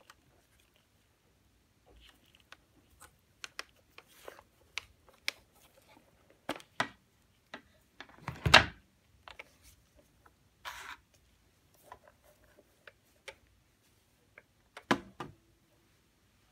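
Handling noises as gloved hands unplug cables from a Drobo Mini storage enclosure and turn it over onto a wooden desk: scattered clicks, rustles and knocks, the loudest a heavier thump about eight and a half seconds in, with another knock near the end.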